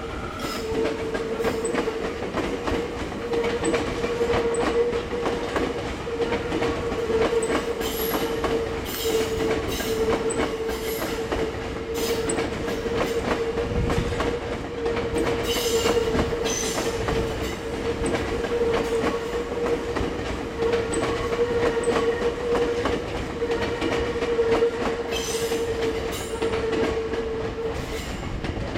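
Tokyo Metro 10000 series electric train running across pointwork, its wheels clacking over rail joints and switches again and again. A steady tone sounds under the clacking throughout.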